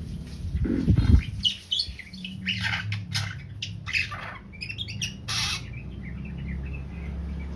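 A pet bird giving a run of short calls over about four seconds, after a low thump about a second in.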